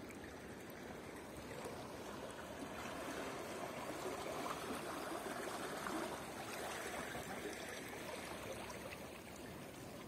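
River water rippling and swirling past the boat, a steady rushing that swells a little in the middle.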